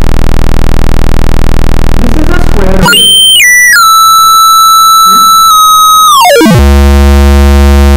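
Computer-generated square-wave tone, loud, its pitch set by a frequency slider: a low buzz for about three seconds, then a sudden jump to a high whistle that steps down twice and holds near 1,300 Hz, then glides steeply down to a low buzz again near the end.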